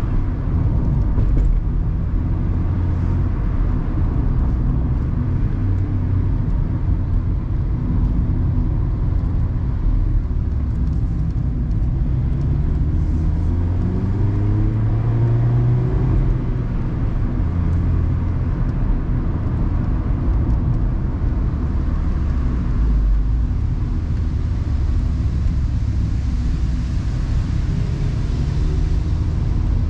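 Mazda ND Roadster (MX-5) being driven with the top down: its four-cylinder engine runs steadily under wind and tyre noise, and the engine pitch climbs clearly about halfway through, then drops back.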